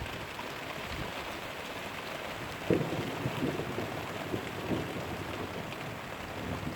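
Rain falling steadily, a constant hiss, with a few short low thumps about three, three and a half and five seconds in.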